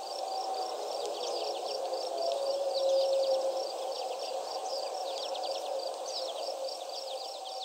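Outdoor bird ambience: small birds chirping, with one high call repeated about three times a second and quick falling chirps, over a steady low rushing haze.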